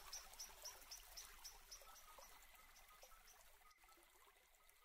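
Near silence, with faint, evenly spaced high ticks about four a second, fading out toward the end.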